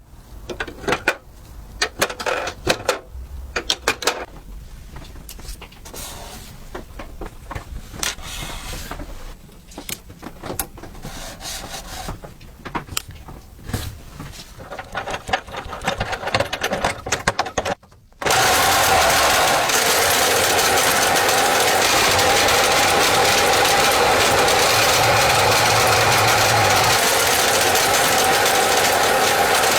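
Scattered clicks and knocks, then about eighteen seconds in a small machine starts and runs loudly and steadily with a constant whirring tone.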